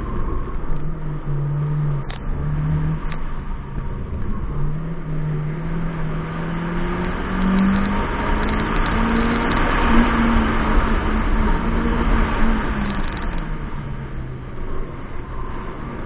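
Honda CRX's 1.6-litre D16Z5 four-cylinder engine under hard acceleration, with brief breaks in its note early on, then climbing steadily in pitch to high revs before the revs drop about thirteen seconds in.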